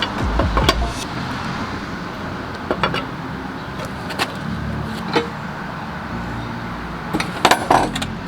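A lug wrench working on the lug nuts of a refitted wheel: scattered sharp metallic clicks and knocks a second or two apart, with a quick cluster of several near the end, over a steady low hum.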